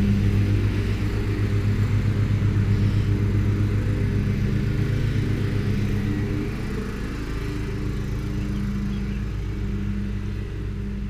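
A motor vehicle's engine running steadily with a low, pulsing rumble, a little quieter from about six seconds in.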